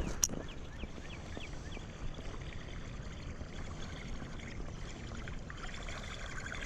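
Steady rush of flowing river water. A few short, high, falling chirps sound in the first two seconds.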